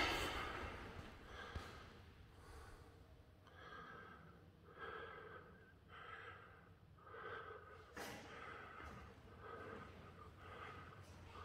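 Faint, even breathing of the person holding the phone, close to the microphone, about one breath a second. A single sharp knock comes right at the start.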